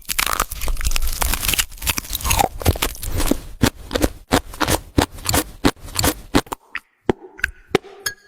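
Close-miked crunchy chewing: dense, crackling crunches of crisp food being bitten and chewed, thinning out near the end to a few scattered clicks.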